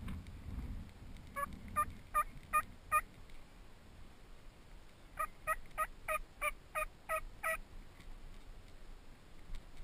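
Turkey yelps: a series of five short, evenly spaced yelps, then after a pause of about two seconds a second series of eight.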